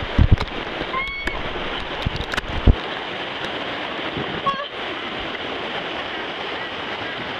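Rushing, churning white water of a water-park wave river around the inner tubes, a steady rush. A few low thumps come in the first three seconds.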